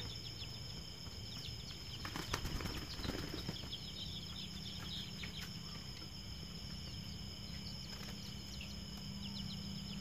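Outdoor ambience: a steady high chirping of insects over a low rumble, with a brief rustling flurry about two to three seconds in.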